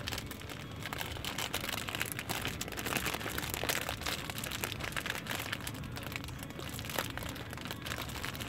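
Plastic snack wrapper crinkling and crackling irregularly as it is handled, over a low steady car-cabin rumble.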